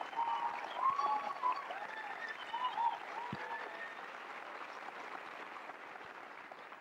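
Studio audience applauding, with voices calling out over the clapping in the first three seconds. The applause then fades away gradually.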